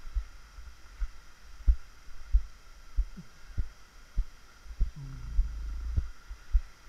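Dull, low thumps of handling noise on a handheld action camera, coming roughly every half to two-thirds of a second in step with walking, with faint surf underneath.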